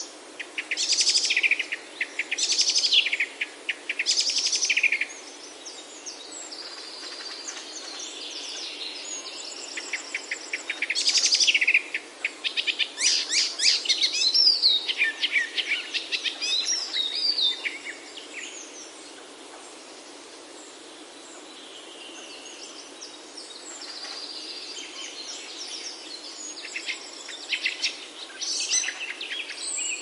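Small songbirds singing: repeated loud bursts of rapid high trills and chirps, several birds overlapping, with a quieter lull about two-thirds of the way through. A steady faint hiss lies underneath.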